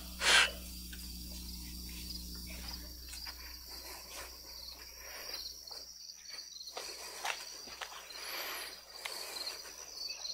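Crickets chirping in a steady high trill, with a short knock just after the start and faint scattered rustles.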